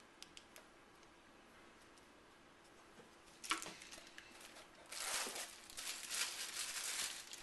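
Packaging being handled as camcorder accessories are unpacked: a few faint clicks, then rustling and crinkling from about three and a half seconds in, heaviest near the end.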